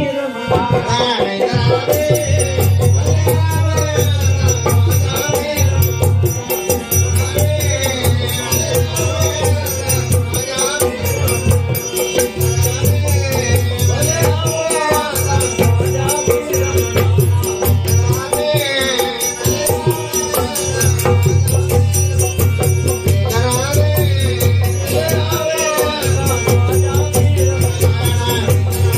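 Himachali Pahadi folk music with singing over a loud, pulsing bass beat and rattling shaker-like percussion, accompanying a dance.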